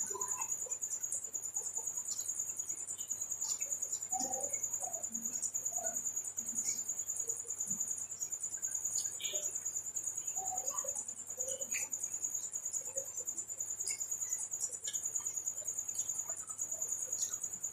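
Close-up chewing and mouth sounds of a man eating spicy goat liver curry with eggs and rice, in small soft smacks and clicks. A steady high-pitched ringing runs under it.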